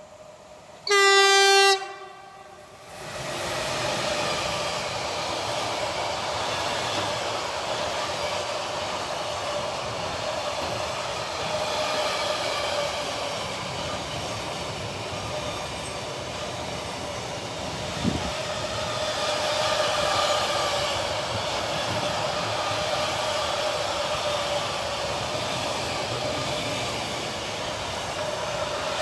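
A freight train's horn sounds one blast, about a second long, then the train runs past close by, its steady noise of wheels and wagons going on to the end.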